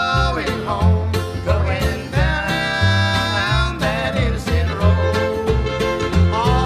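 Old-time string band music, an instrumental passage: a fiddle plays a melody with sliding notes over a steady plucked rhythm and bass notes.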